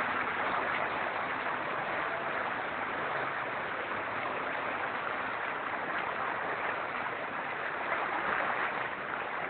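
Floodwater rushing steadily, a continuous watery noise with no breaks.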